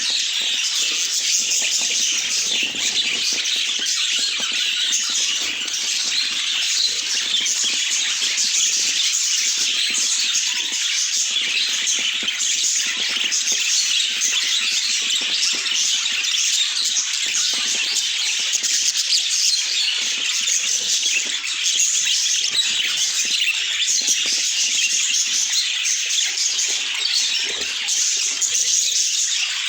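Budgerigars chattering and chirping without a break, many high calls overlapping.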